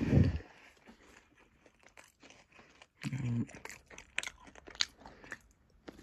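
Someone chewing and crunching a chocolate bar close to the microphone: two louder low bumps, at the start and about three seconds in, then scattered crisp crunching clicks.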